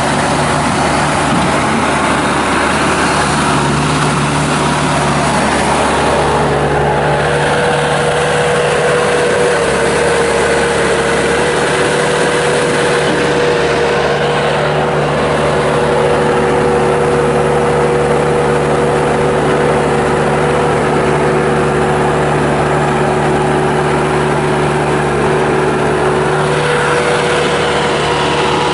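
Bobcat S250 skid steer loader's Kubota turbo diesel running steadily, with a steady whine over the engine note.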